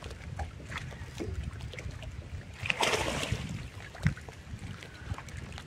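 Wind buffeting the microphone over water lapping against a boat's hull. About three seconds in comes a brief rush of noise, the loudest sound, followed by a sharp knock about a second later.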